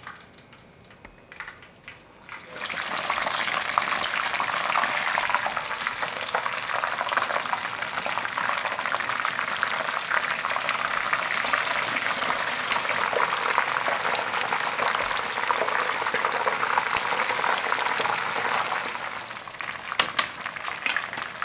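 Chicken pieces sizzling and crackling in hot oil on their second fry. The sizzle starts suddenly about two and a half seconds in as the chicken goes into the oil, holds steady, and eases off near the end, where there are a few sharp clicks.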